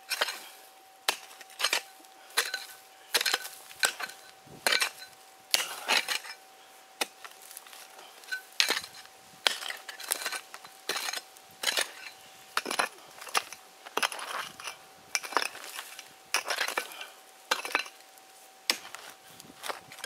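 A steel hand pick strikes and scrapes hard, stony soil in repeated blows, about one to two a second, each a sharp clink of steel on gravel and rock. Digging is slow going in the hard ground.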